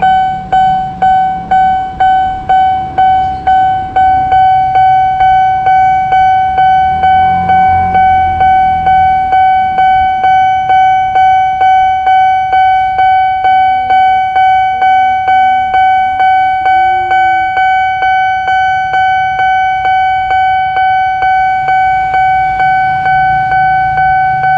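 Railway level-crossing warning bell ringing, one pitched ding repeated steadily about twice a second, sounding while the crossing is closed for an approaching train.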